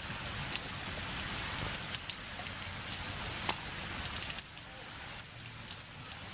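Heavy rain falling steadily, a constant hiss with scattered sharp patters of drops.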